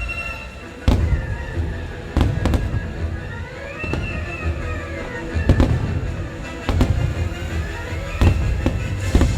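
Fireworks bursting overhead: about seven sharp bangs with a low rumble, one to two seconds apart, over the fireworks show's soundtrack music.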